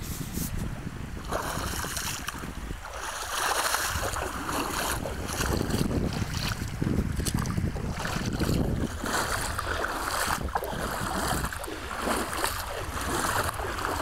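Bare feet wading through shallow sea water, a swishing splash about once a second with each step, over a low rumble of wind on the microphone.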